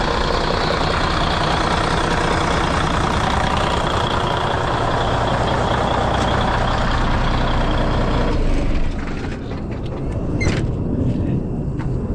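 Freshly overhauled Cummins N14 inline-six diesel running, with a loud steady hiss over it. The hiss cuts off suddenly about eight seconds in, leaving a low rumble and a few sharp clicks.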